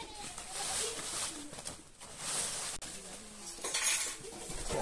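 Freshly cut leafy fodder branches rustling as an armful is gathered from a pile and carried, in about three separate swishes of leaves.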